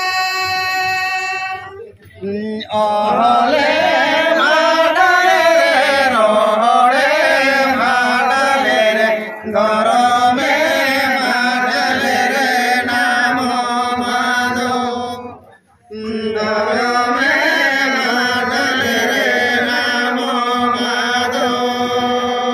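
Voices singing a chant-like song in long held phrases, breaking off briefly about two seconds in and again about fifteen seconds in.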